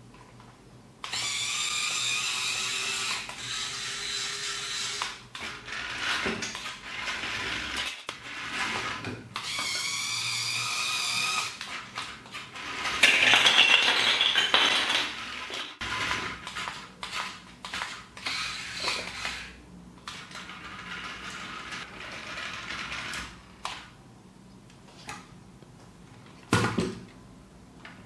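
Small electric motor in a toy building-block forklift whirring as it turns a plastic worm gear to move the fork arm, in several runs of a few seconds each, the loudest about halfway through. Between and after the runs come many short clicks and knocks of plastic parts.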